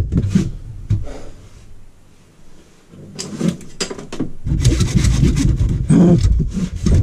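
Wood being sawn: a few knocks and clicks of handling, then from about four and a half seconds in a fast, continuous run of sawing strokes.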